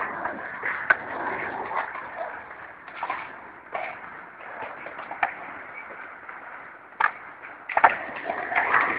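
Skateboard wheels rolling on a concrete bowl, broken by several sharp clacks of the board striking the concrete, with a louder cluster of hits near the end.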